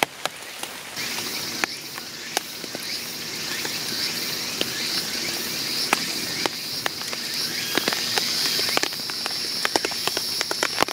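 Rain dripping onto a tarp overhead: irregular sharp taps of drops on the fabric, several a second, over a soft rain hiss. A steady high insect drone comes in about a second in.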